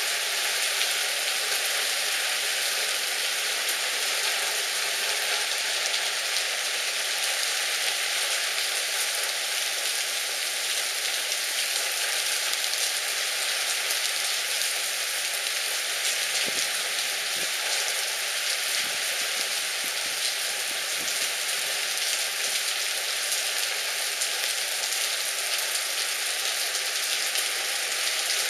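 Heavy downpour falling steadily on paving and parked cars: a dense, even hiss with a fine patter of drops, unchanging throughout.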